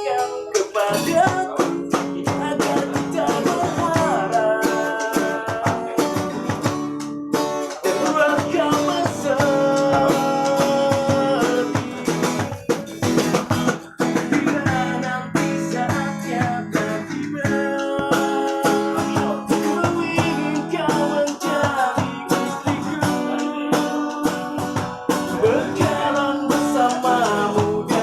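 Street busker singing a melodic song while strumming a guitar, the voice carrying a wavering melody over steady chords.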